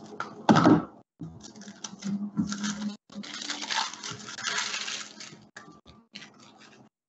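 Paper being cut with scissors and handled, rustling and crinkling in bursts, with a loud knock about half a second in; the scissors are laid down on a cutting mat partway through.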